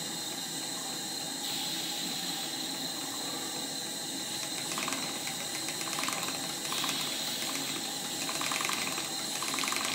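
Stuart 10H single-cylinder model steam engine running fast on live steam at about 35 psi, a steady hiss of steam with rapid mechanical ticking that comes and goes in short spells from about halfway through.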